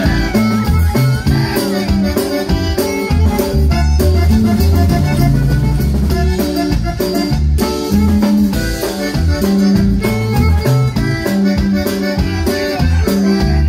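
Live Tejano conjunto music, played without singing: a button accordion leads the melody over electric bass, drum kit and acoustic guitar, with a steady beat.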